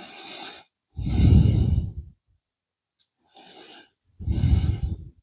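A person breathing close to the microphone in a slow, regular rhythm: a quiet inhale, then a louder exhale that puffs onto the mic, twice.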